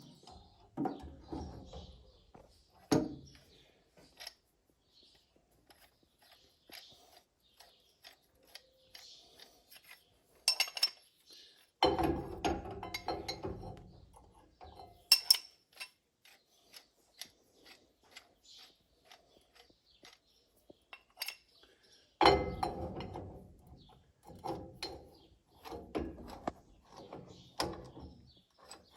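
Steel pulley-puller arms and hand tools being handled on the combine's countershaft sheave: scattered metal clinks and sharp knocks, with two longer stretches of clattering and scraping.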